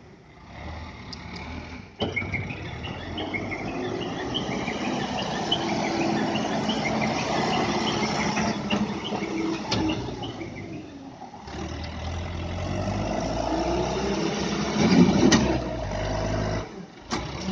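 Diesel engine of a BULL 60 hp four-wheel-drive backhoe loader running as the machine drives and works around the yard, with a louder swell about 15 seconds in. The sound breaks off abruptly about 2 and 11 seconds in.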